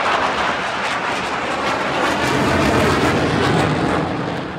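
Two military jets flying low overhead in a stadium flyover: a loud, steady jet roar that grows deeper and heavier about two seconds in.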